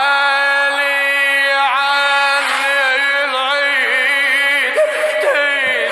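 Wordless chanting over a steady held drone, a slow Middle Eastern melody with wavering, ornamented pitch: the musical opening of a Shia mourning latmiya in the Najafi style.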